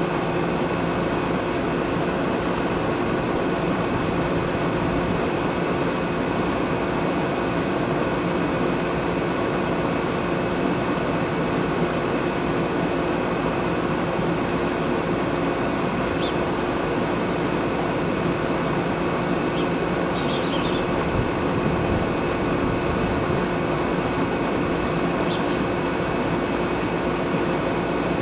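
Steady mechanical hum with a constant low tone that holds unchanged throughout.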